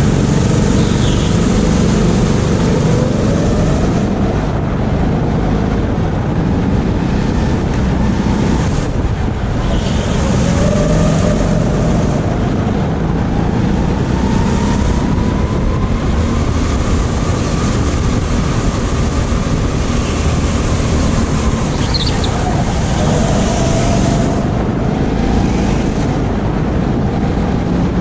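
Go-kart driven at speed, heard from on board: a steady motor rumble whose pitch rises and falls through the corners.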